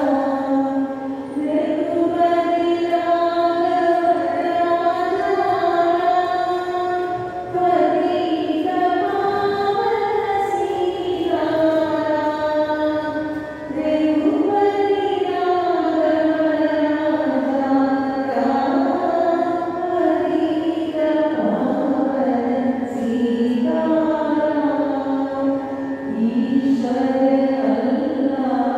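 Women singing a devotional prayer chant together as one melody, in slow held phrases with a short breath about every six seconds.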